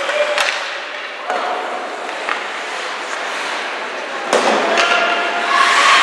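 Sounds of a youth ice hockey game in a rink: a few sharp knocks from play on the ice over a steady crowd hubbub of spectators calling out, the shouting growing louder in the last couple of seconds.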